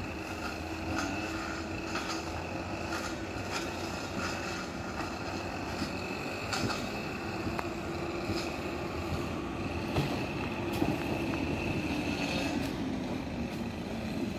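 ICE electric train running past on the tracks below: a steady drive hum with a thin higher whine, and repeated clicks and knocks from the wheels on the rails. The hum sags slightly in pitch near the end.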